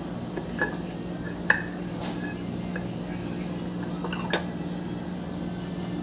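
Sharp metallic clinks and taps of tools and metal parts being handled while an AC outdoor fan motor is taken apart, a few scattered knocks with the loudest about a second and a half in, over a steady low hum.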